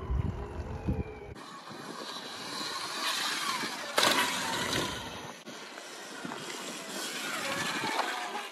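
Bike tyres rolling on pavement with a steady hiss, swelling and fading as a rider passes, with a few low thumps in the first second and a sharp knock about four seconds in.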